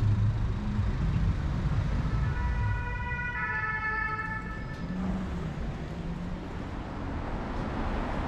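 Emergency-vehicle siren, its pitch switching back and forth, heard for about three seconds from about two seconds in, over the steady rumble of street traffic.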